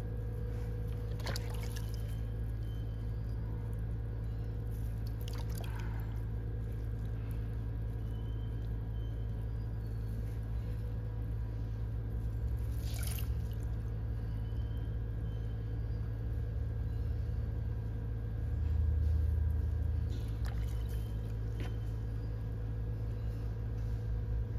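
Electric pottery wheel motor humming steadily as it spins, with a few brief noises over it.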